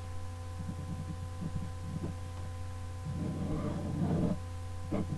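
Steady electrical hum with soft, irregular scratching of writing on paper, thickening into a longer stretch of scratching a little past halfway, and a single sharp click near the end.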